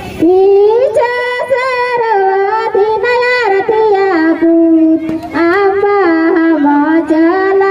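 A single high voice singing a slow, ornamented Chhath devotional song (Chhath geet), sliding between notes, with a short break between phrases about two thirds through.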